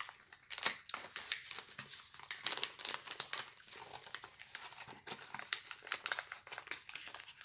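Crinkly snack packaging being handled, a dense, irregular run of crackles and rustles, loudest about two and a half seconds in.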